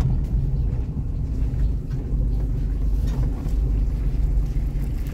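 Steady low rumble of a vehicle driving slowly on a wet gravel road: engine and tyre noise heard from inside the cab.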